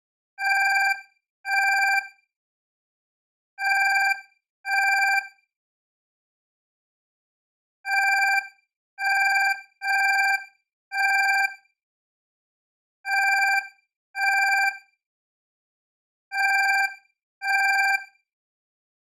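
Alarm clock ringing in short bursts of under a second each, mostly in pairs with one run of four, with silent pauses of one to three seconds between the groups.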